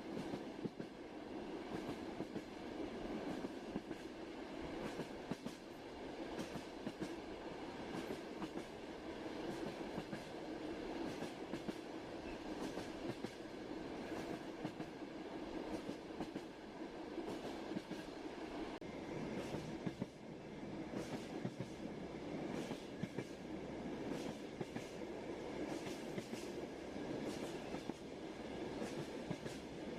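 Passenger train running at a steady pace: a continuous rumble with frequent clicks and knocks of the wheels over the rail joints.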